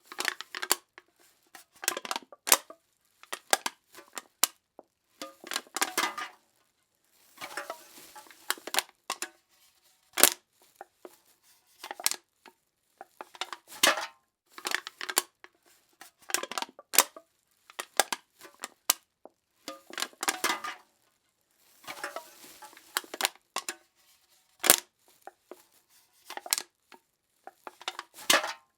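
Aluminum cans being crushed: a long series of short crackling crunches with sharp metallic snaps, roughly one every second or so, each separated by a brief silence.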